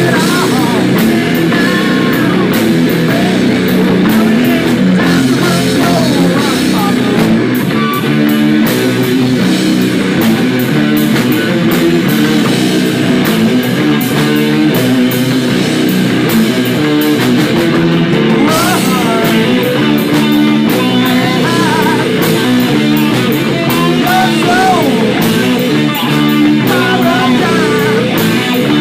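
Live rock band playing loud: electric guitars over a drum kit, with a singer's voice coming through at times.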